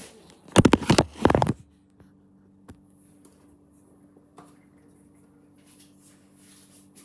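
Handling noise from a phone being moved and set down: a quick run of loud rubs and knocks on the microphone about a second in, then a faint steady hum with a few small clicks.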